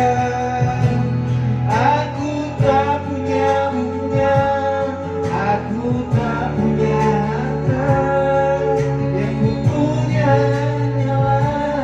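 Music: a song with guitar accompaniment and a melodic line over a steady bass.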